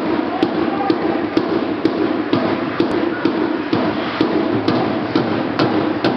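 A steady thumping beat, about two strikes a second, over continuous hockey-rink noise.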